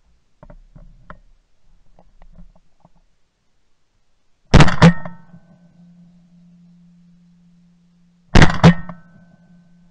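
Two shotgun shots at flying mallards, heard from a camera mounted on the gun barrel, about four seconds apart. Each blast is doubled by a quick second crack and followed by a steady low hum. Faint small knocks of the gun being handled come before the first shot.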